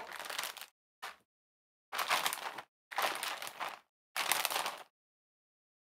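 Clear plastic vacuum storage bag crinkling in about five short bursts as a filament spool is slid into it and the bag is handled.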